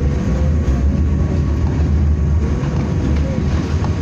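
BKM-60102 tram running along the line, heard from inside the car: a steady low rumble of wheels on rail and running gear, with a faint whine that rises and falls a few times.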